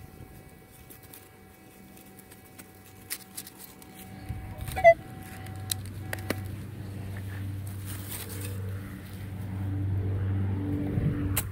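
Metal detector pinpointer sounding a steady electronic tone as it probes the hole, with a sharp click about five seconds in. After that a low engine-like rumble builds up and cuts off suddenly near the end.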